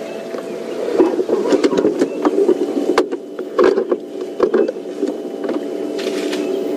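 Safari vehicle engine running steadily, with a run of sharp cracks and snaps of branches and twigs breaking from about a second in to about five seconds in.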